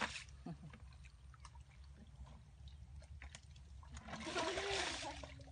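Hands sloshing and squelching through shallow muddy water and mud, with scattered small clicks, and a louder splash about four seconds in.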